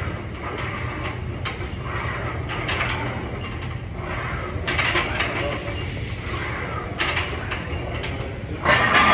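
Gym background noise: a steady low rumble with scattered bursts of clatter-like noise, the loudest one just before the end.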